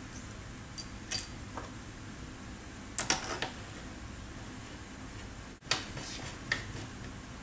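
Small metal parts of a pneumatic tool's nose assembly clicking and clinking as they are fitted and turned by hand: a few sharp clicks, the loudest about a second in, a quick cluster around three seconds, and a few more near the end.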